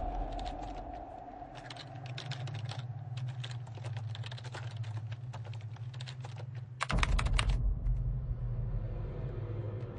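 Typing on a computer keyboard, irregular key clicks, over a low steady hum. There is a loud, short crash about seven seconds in.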